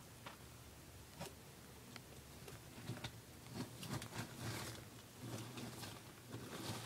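Faint, scattered rustles and scratches of a tegu lizard crawling over bark-chip substrate, busier from about three seconds in.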